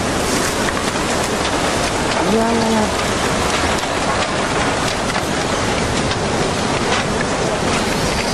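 Tsunami floodwater rushing: a loud, steady noise with scattered crackles. About two and a half seconds in, a person gives one short call that rises and falls in pitch.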